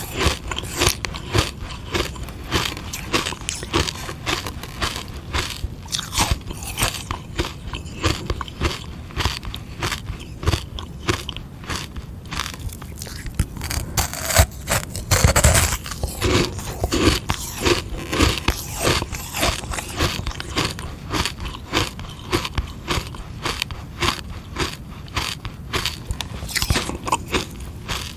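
Teeth biting and chewing hard sugar-water ice: a rapid run of crisp crunches, several a second, with a louder bite about fifteen seconds in.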